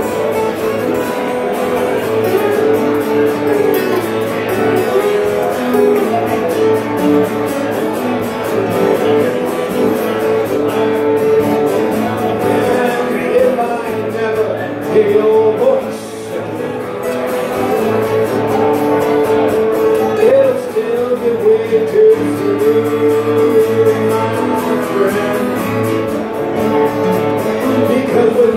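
A man singing and playing acoustic guitar, a live solo song through a microphone.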